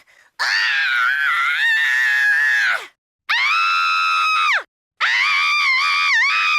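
Three high-pitched cartoon screams in a row from a character's voice, each held for one to two and a half seconds with short silent gaps between; the last one drops in pitch as it ends.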